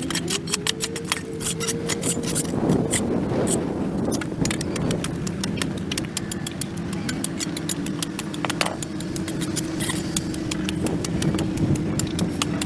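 Many short, irregular scrapes and clicks of a tool working on pavement, over a steady engine hum.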